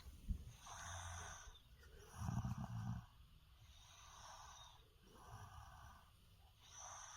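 A woman snoring in her sleep: slow, regular snoring breaths about every one and a half seconds, one louder snore with a deep low part about two seconds in.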